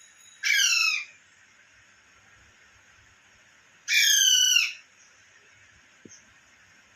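Pet parrot giving two harsh squawks, each under a second long, about three seconds apart.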